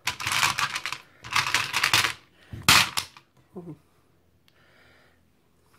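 Fingers and nails brushing and tapping over glued-down faceted craft gems and glass marbles, a scratchy clicking in three bursts within the first three seconds, the last short and the loudest.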